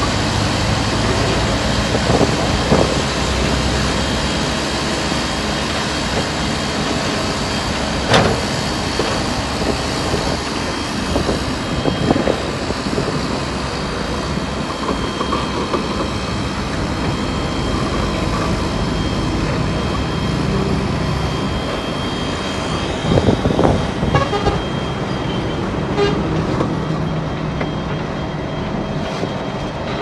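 Diesel engines of earthmoving machinery running steadily, with a sharp clank about eight seconds in and a few more knocks and clanks about three-quarters of the way through.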